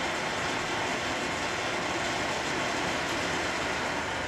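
Schaublin SV-51 milling machine running and cutting one flat of a hexagon on a small turned workpiece held in a dividing head: a steady, noisy rush that builds up just before and fades shortly after.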